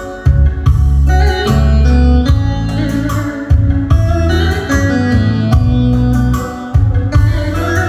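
Music with a heavy bass and held notes, briefly dropping out just after the start and again near the end.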